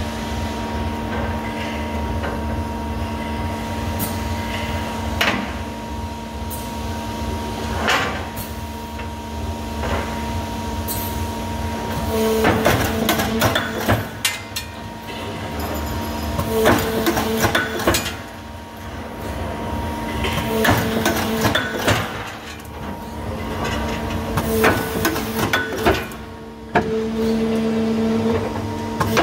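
APS RPS-504 punch line punching holes in a steel flat bar. A steady machine hum runs under it, with a few single knocks at first. From about halfway through come short clattering bursts of punch strokes every few seconds.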